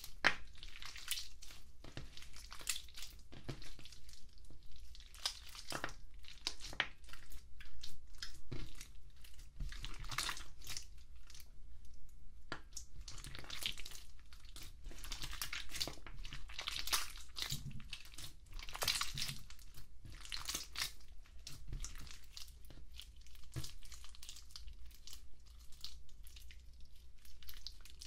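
Hands squeezing and kneading clear slime with lipstick and eyeshadow mixed in: an irregular run of sticky clicks, pops and crackles as the slime is pressed, folded and pulled apart.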